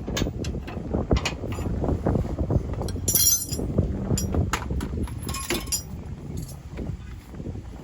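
Hand-tool work on a truck's rear sway bar bushing mount: irregular metallic clicks and knocks, with short creaking squeaks about three seconds in and again near the sixth second.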